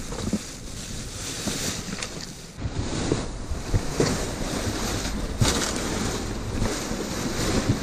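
Clear plastic garbage bags rustling and crinkling as they are pulled open and shifted around, with scattered short knocks and crackles; the rustling grows louder about two and a half seconds in.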